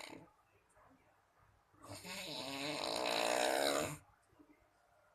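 A person snoring. The end of one snore fades out at the start. After a quiet pause, one long, wavering snore of about two seconds begins about two seconds in.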